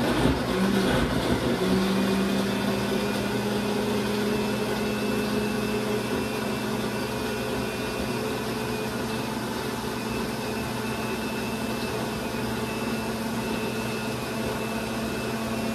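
Countertop electric blender running steadily, its motor humming evenly as it blends pineapple and cucumber into juice; the hum settles into a steady pitch about a second and a half in.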